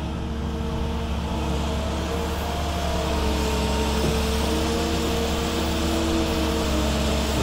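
Cat 310 mini excavator's diesel engine running steadily under load, with a drone and several steady tones that shift slightly in pitch as the machine swings and works its boom and bucket. It grows a little louder about three seconds in.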